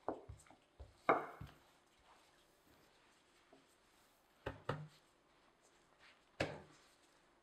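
Wooden rolling pin knocking and rolling on a silicone mat over a sheet of dough, a quick run of knocks with the loudest about a second in. A few softer thumps follow later as the dough sheet is folded and pressed down by hand.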